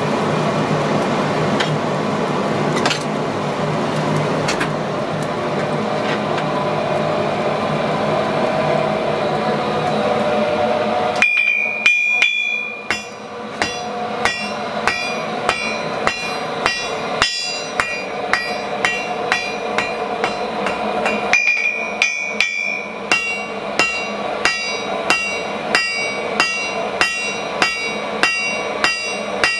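A forge fire with its air blast running makes a steady rushing noise with a low hum for about the first ten seconds. Then a hammer strikes hot iron on an anvil with a clear metallic ring, at first unevenly and then at a steady pace of about one and a half blows a second, as a nail is hand-forged.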